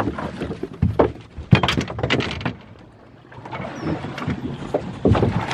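Knocks and thumps of gear being handled in a small boat: several sharp knocks in the first two seconds, a quieter lull, then more knocking near the end.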